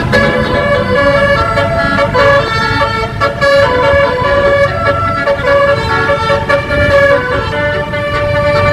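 Basuri 12-note telolet horn on a tour bus, its roof-mounted trumpets playing a quick melody of sustained notes that change every fraction of a second, over a low rumble.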